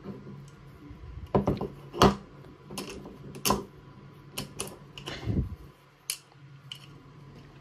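Light metallic clicks and knocks from handling the aluminium parts of a small model double-cylinder steam engine and a hex key: several separate sharp taps between about one and six seconds in, the loudest about two seconds in.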